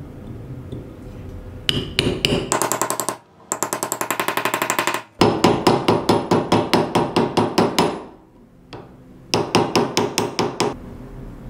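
Small hammer tapping a small steel ring onto the end of a tubular lock part held against a bench vise. The light, sharp metal-on-metal blows come in quick runs of about seven to ten a second, with short pauses between, and each blow rings briefly.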